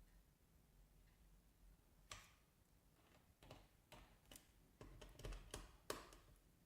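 Faint, scattered clicks and taps, about a dozen starting around two seconds in, from multimeter test probes being set against a small capacitor's leads for a capacitance measurement.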